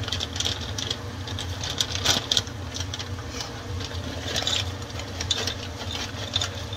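Sugar syrup bubbling and crackling around pecans in a hot skillet, with irregular ticks and hiss, over the steady hum of a range hood fan.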